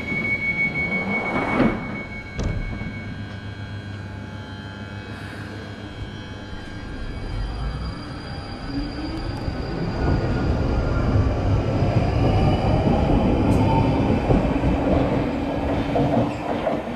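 Northern line tube train at a platform: a steady high warning tone, the doors shutting about two seconds in, then the train pulling away, its traction motors whining up in pitch and its wheels rumbling louder as it accelerates.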